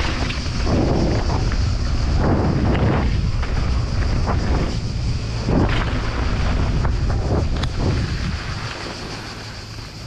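Wind buffeting an action camera's microphone as a mountain bike rides fast down a dirt trail, with knobby tyres rolling over dirt and loose stones and a few sharp clicks from the bike over bumps. The rush eases near the end as the bike slows into a berm.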